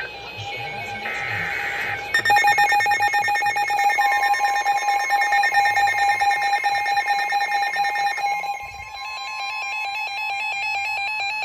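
Weather radio alert: the last buzzy NOAA Weather Radio SAME data bursts of the alert header, then the receivers' own rapidly pulsing alarm beeps from about 2 s in, joined about 4 s in by the National Weather Service's long steady warning alarm tone. It announces the tornado warning that follows.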